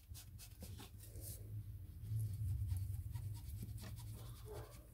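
A foam ink dabber being tapped quickly on a Distress Ink pad, then dabbed and rubbed along the edge of a piece of card. A run of soft taps in the first second and a half gives way to quieter, longer rubbing.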